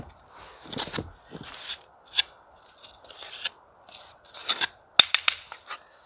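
A small hand trowel scraping and scooping packed snow out of a fire pit: irregular crunching scrapes, with a quick run of sharp clicks about five seconds in.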